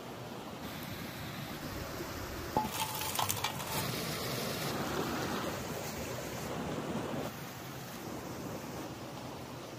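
Steady rushing of a small stream, louder for a few seconds near the middle, with a few light clicks and clinks shortly before.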